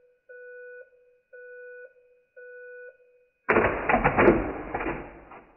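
Three short electronic beeps about a second apart, followed by a louder burst of mechanical clattering that fades away over about two seconds.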